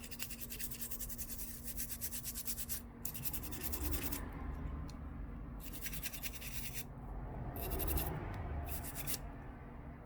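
Toothbrush bristles scrubbing a phone's motherboard in alcohol to clear water-damage corrosion, in several bursts of quick back-and-forth strokes with short pauses between.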